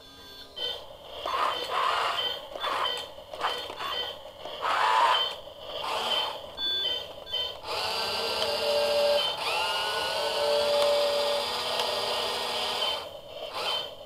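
Battery-powered RC grappler crane toy operating: its speaker plays electronic sound effects with repeated short high beeps, then from about eight seconds a steady electric whine that shifts in pitch for several seconds as the crane moves.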